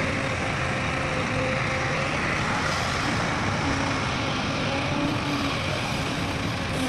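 Heavy diesel vehicle engine running steadily among general traffic-like rumble, with a faint wavering hum.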